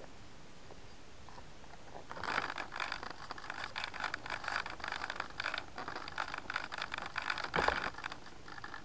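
Close-up scraping and rattling of an RC P-51D Mustang model's airframe and canopy being handled by hand, starting about two seconds in, with a louder knock near the end.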